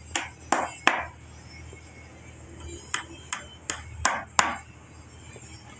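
Steel-headed hammer striking a nail into a wooden chair-frame joint. Three quick blows, a pause of about two seconds, then five more blows.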